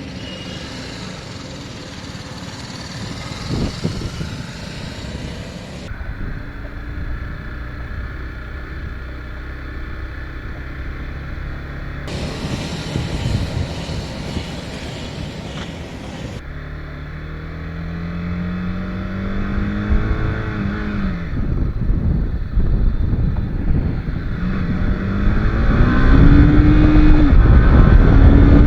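TVS Apache RR 310's 312 cc single-cylinder engine accelerating under way, mixed with wind rush on the microphone. Its pitch climbs, drops back at a gear change, then climbs again, and the wind noise grows loudest near the end.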